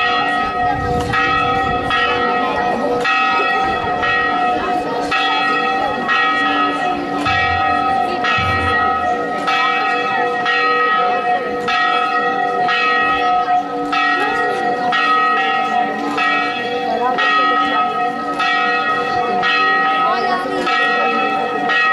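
Church bells struck over and over in a steady rhythm, a stroke a little more often than once a second, their tones ringing on between strokes.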